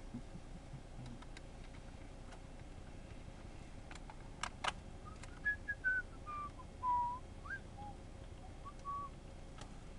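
A person whistling a short tune of about a dozen notes, mostly stepping downward, in the second half. Faint clicks come from a small screwdriver turning a screw into a laptop's plastic base panel, the sharpest a pair a little after four seconds.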